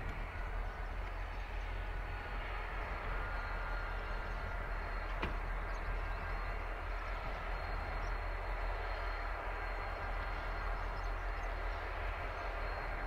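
Diesel freight locomotive running in the distance as it slowly approaches, a steady low rumble with a faint engine hum. One sharp click about five seconds in.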